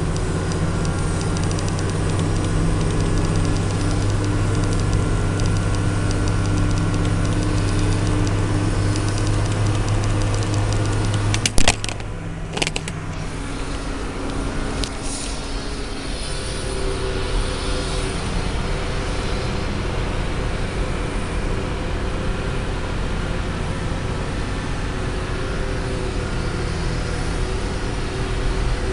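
New Holland tractor's diesel engine running steadily, heard from inside its cab while pushing an aircraft back. A few sharp knocks come a little over a third of the way in, after which the engine note drops and settles at a lower, steadier level.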